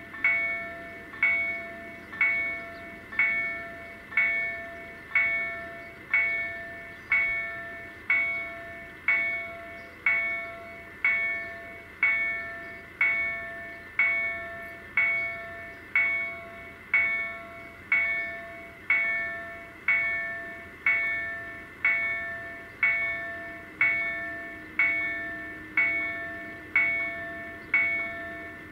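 Level crossing warning bell striking about once a second, each stroke ringing and fading before the next, while the barriers are down: the signal that the crossing is closed for an approaching train.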